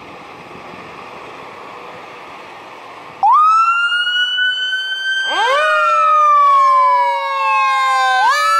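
Fire engine's low diesel rumble, then about three seconds in its siren cuts in loudly and winds up into a wail. A second siren tone joins about two seconds later, and both glide slowly down before stepping back up near the end.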